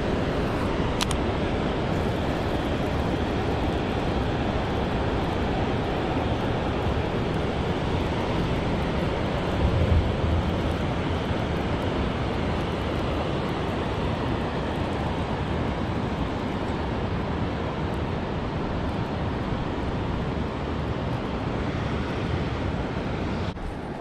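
River water rushing over rocks: a steady, even rush. There is a brief low thump about ten seconds in, and the rush drops off sharply just before the end.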